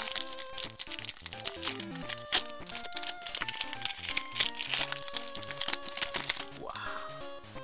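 Foil wrapper of a Pokémon trading-card booster pack being torn open and crinkled by hand: a dense crackling that stops about six and a half seconds in. Background music with held notes plays underneath.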